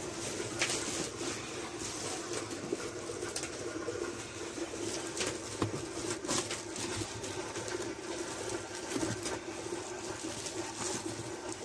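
Fujidenzo JWT-601 twin tub washing machine running: a steady motor hum under continuous churning noise with scattered light clicks.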